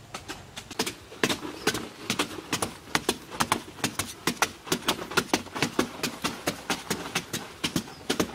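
Two short-handled metal-bladed hand tools chopping into hard, dry earth: quick, uneven strikes, several a second from two people working at once, louder from about a second in.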